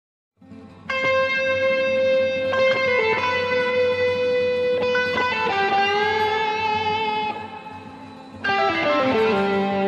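Electric guitar playing long held lead notes, the note wavering in the middle, then a falling run of notes near the end.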